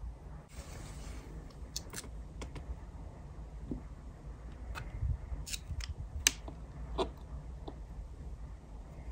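Tiny glass jars with cork stoppers clicking and tapping against a thin metal tray and each other as they are handled and set down: a scattering of light, separate clicks, the loudest a little after six seconds and again at seven, with a brief soft rustle near the start.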